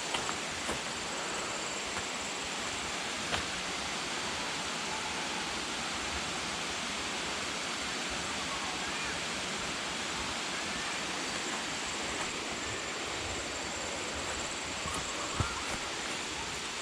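Steady rushing of a waterfall's flowing water, with a few faint knocks.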